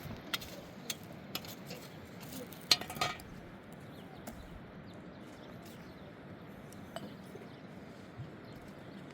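Scattered sharp clinks and knocks, a few at a time, with the loudest cluster about three seconds in, over a steady low hiss.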